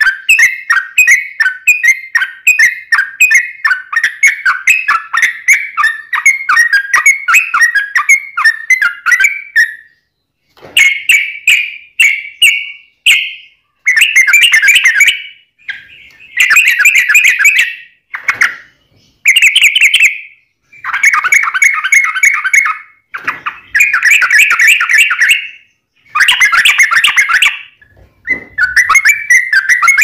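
Yellow-vented bulbul singing loudly: a fast, continuous run of repeated chattering notes for about the first ten seconds, then, after a short pause, a string of song phrases a second or two long with brief gaps between them.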